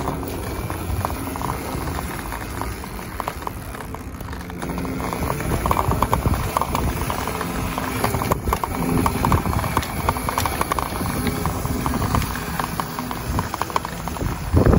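Small 72V electric dirt bike being ridden over a rough dirt path: dense rattling and clattering from the bike over the bumps, with a faint electric motor whine underneath that shifts in pitch.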